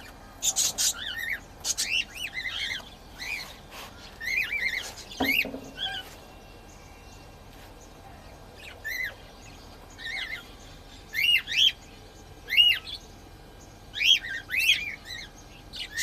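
Cockatiels chirping, short rising-and-falling calls in bunches with a pause of a couple of seconds midway. A few sharp clicks come in the first seconds.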